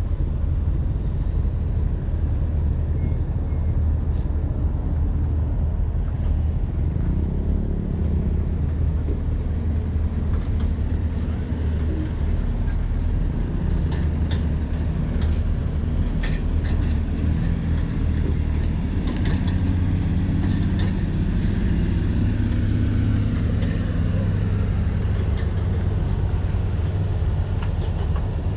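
Heavy diesel engine running with a deep, steady rumble, its pitch rising and falling a few times. Short metallic clanks and knocks join in from about halfway through.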